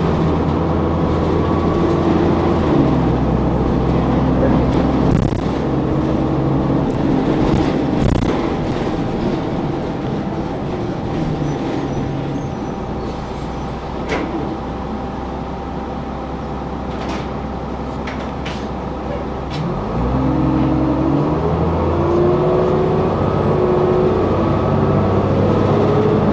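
Orion V transit bus heard from inside the cabin, its engine running under way with the pitch stepping between gears. It runs lower and quieter through the middle, then rises about two-thirds of the way in as the bus pulls away, shifting up again near the end. Short rattles and clicks from the body come through here and there.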